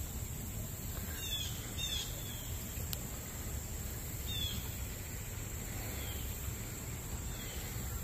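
Summer outdoor ambience: insects keeping up a steady high-pitched drone, with a handful of short, falling bird chirps scattered through it over a low background rumble.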